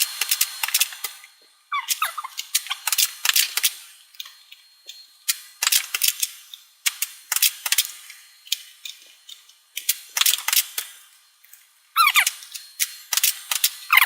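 Foam-dart toy pistol being repeatedly primed and fired at targets: bursts of sharp clicks and squeaky, downward-sliding plunger sounds, a burst every second or two.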